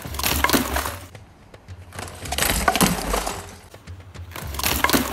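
Small hard objects rattling in a plastic cup as it is shaken, in three bursts of about a second each.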